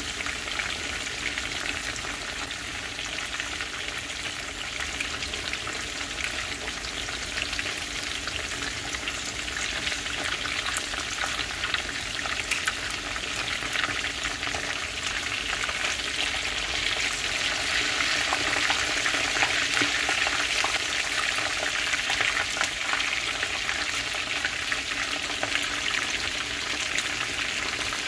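Kingfish steaks frying in a pan of hot oil: a steady sizzle that swells somewhat louder past the middle as the steaks are turned with tongs.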